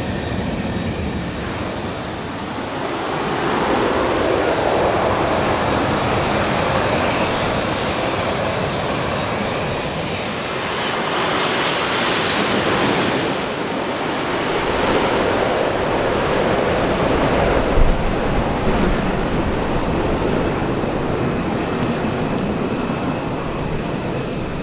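Jet airliner flying low overhead on final approach to land, its engine roar building, loudest with a high hissing whine about halfway through, then easing off as it heads down onto the runway.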